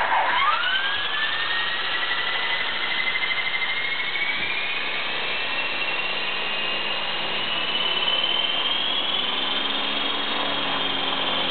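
Align 500L RC helicopter's brushless motor, with rotor blades fitted, spinning up: a whine that climbs steadily in pitch for about ten seconds, then eases off slightly near the end.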